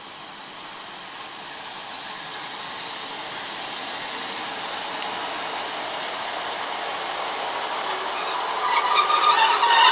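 Northern Class 150 diesel multiple unit running into the platform, its rolling rail noise growing steadily louder as the coaches pass close by. A jittery metallic squeal sets in near the end as it slows for the station stop.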